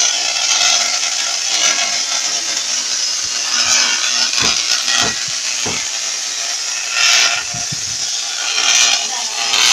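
Tesla coil sparking: a continuous harsh buzzing crackle of electrical discharge from the toroid topload, with a few sharp snaps around the middle and louder surges near the end.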